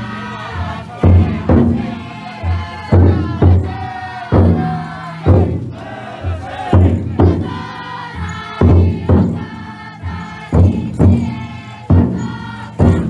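Big taiko drum inside a futon daiko float beaten with heavy strokes about once a second, sometimes in close pairs, under the bearers chanting together in a loud, sustained unison.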